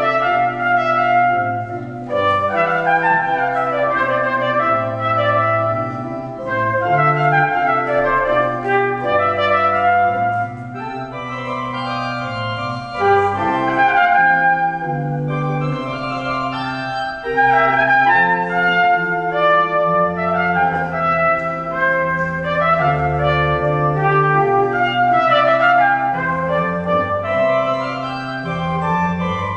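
Trumpet and pipe organ playing a closing piece together: sustained notes over a moving bass line.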